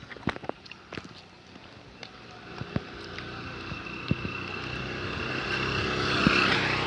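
A motorcycle approaching and passing close by: its engine grows steadily louder, peaks about six seconds in, then begins to fade. A few sharp clicks come at the start.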